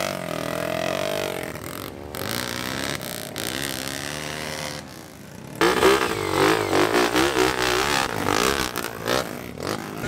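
Enduro dirt bike engines revving up and down as the bikes churn through deep mud. A little past halfway it gets louder, with several engines revving at once.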